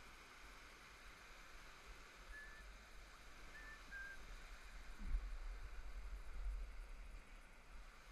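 Faint steady rush of river rapids, with three short high chirps a few seconds in and a low rumble on the microphone from about halfway.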